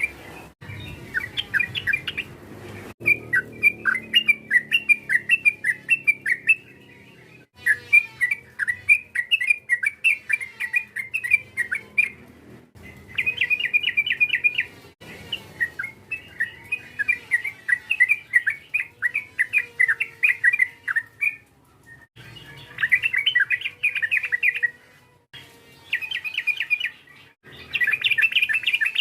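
Yellow-vented bulbul (trucukan) singing in fast, chattering, repeated phrases, in bouts of a few seconds broken by short pauses.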